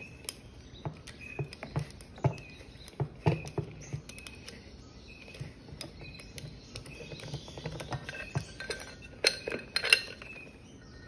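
Light, irregular metallic clicks and clinks as a nut is spun off by hand from the recoil starter of a Victa two-stroke lawnmower, with a few sharper clinks near the end.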